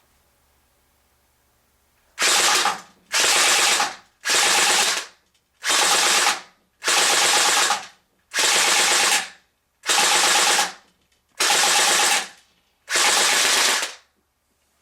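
CSI MP5 airsoft electric gun (AEG) firing on full auto: nine short bursts of about five to ten shots each, the battery-driven gearbox cycling in a rapid chatter, starting about two seconds in and stopping shortly before the end.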